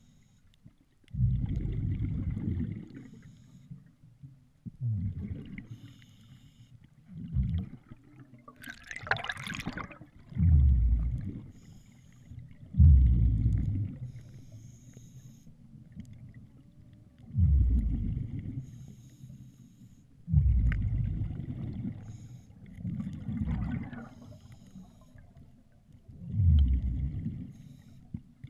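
Water sloshing and bubbling in low rumbling surges that come and go every two to three seconds, with a sharper hissing splash about nine seconds in.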